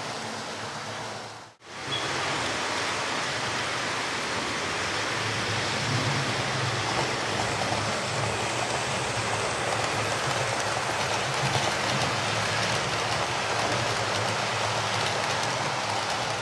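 Model Class 43 train running on the layout's track: a steady rattling whir of wheels on rail and motor, with a low hum that grows stronger in the middle. The sound drops out briefly about a second and a half in.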